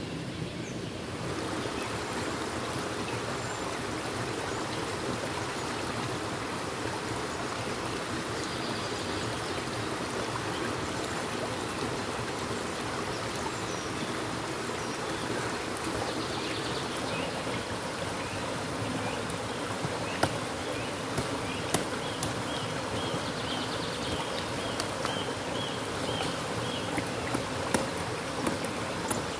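Steady rushing of a flowing stream with insects buzzing over it. In the last ten seconds a few sharp clicks and rustles come through as pumpkin vines are handled and cut.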